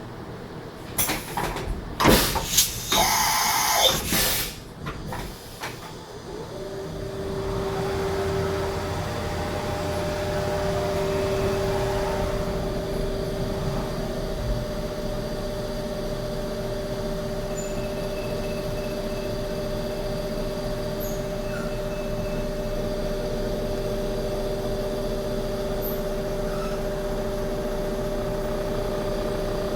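A CNC machine's spindle spins up about six seconds in and then runs with a steady whine at one pitch. Before that there are a few seconds of loud clattering and hissing.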